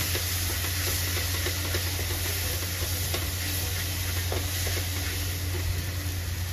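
Thick masala paste of onion, tomato and ground spices sizzling in oil in a non-stick kadhai as a flat spatula stirs and scrapes through it, with many small taps of the spatula against the pan. A steady low hum runs underneath.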